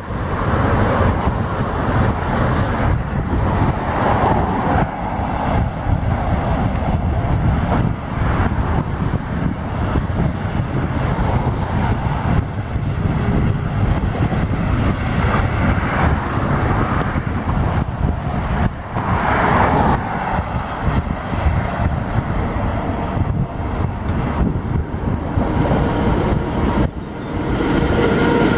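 Road traffic: cars passing one after another, each swelling and fading. Near the end an electric freight train hauled by two SBB Cargo electric locomotives, a double-header, comes by close, with a steady whine over the rumble.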